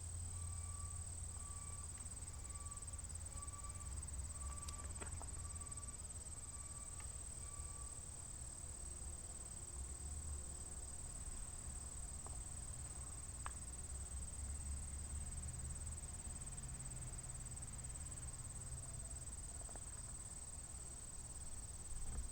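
Insects trilling in one steady, high-pitched, unbroken tone over a low outdoor rumble, with faint short evenly spaced beeps in the first third.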